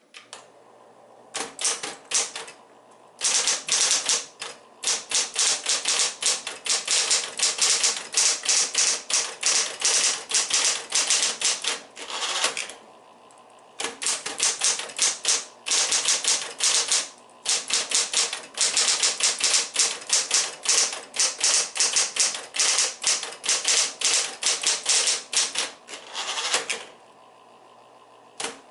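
Smith-Corona Coronet Electric 10 electric typewriter typing in rapid runs of key strikes, several a second, with a few short pauses. Its motor keeps up a steady low hum between the runs.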